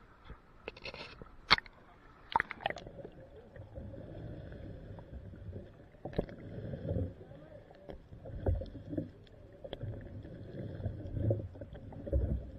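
Muffled underwater sound from a camera held under the sea surface: low rumbling and sloshing water with dull irregular thumps. A few sharp knocks come in the first three seconds, before the sound turns muffled.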